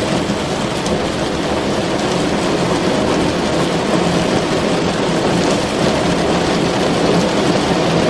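Rain pattering steadily on a car's roof and windows, heard from inside the cabin, with a steady low hum underneath.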